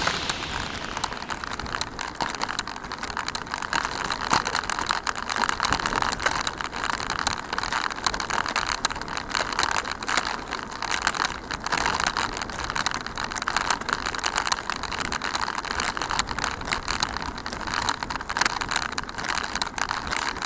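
Handcycle rolling along a rough asphalt road: a steady, dense rattle of its chain, frame and tyres.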